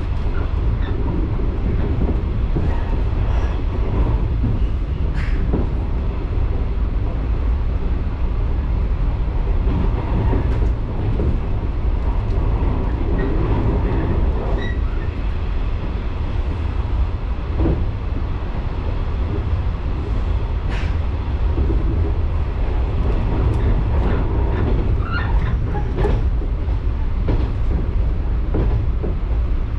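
Electric local train running along the line, heard from inside the rear cab: a steady low rumble of wheels on rail with a click now and then as the wheels pass rail joints.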